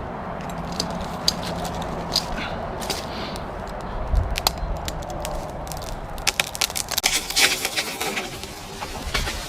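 Wood cracking and snapping in a scatter of sharp cracks, which come much thicker about six seconds in.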